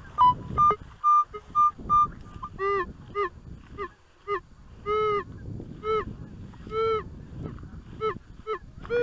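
A metal detector gives a few short, steady beeps, then geese honk repeatedly in short arched calls, some in quick pairs.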